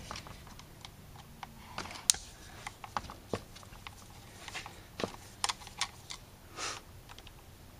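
Flat-blade screwdriver working the screws of the automatic choke housing on an Autolite 4100 carburetor: faint, irregular metal clicks and scrapes.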